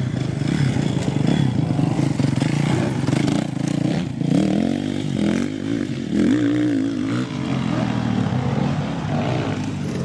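Dirt bike engine running and revving, its pitch rising and falling as the throttle is worked.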